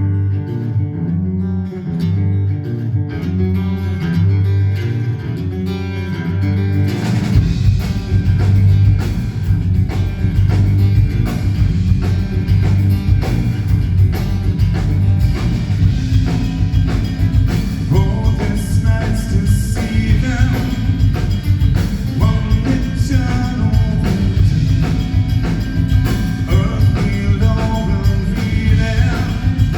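Progressive rock band playing live. A few seconds of sparse clean melodic notes, then about seven seconds in the full band comes in with drum kit, bass and guitars.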